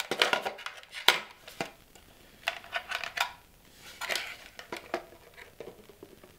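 Hard plastic parts of a 3D-printed speaker knocking and scraping together as the baffle, carrying its woofer and crossover board, is forced into the enclosure. Irregular clacks and scrapes that thin out near the end.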